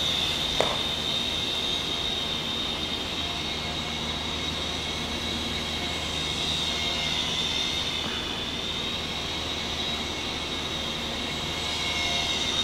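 Micro RC jet's small electric motor running steadily in flight, a high whine that wavers slightly in pitch. One brief knock about half a second in.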